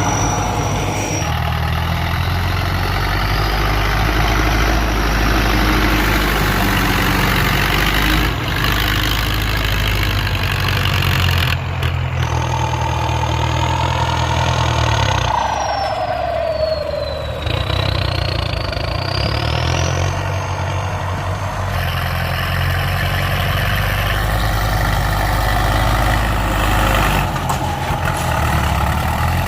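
Ford 6610 tractor's four-cylinder diesel running loud and steady while pushing soil to level a rice field, its pitch shifting now and then as the load changes. In the middle a high whine slides down in pitch and back up again.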